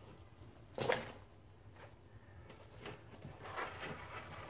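Nylon tactical pouches being handled on a table: a short thump about a second in, then soft fabric rustling and a few light clicks.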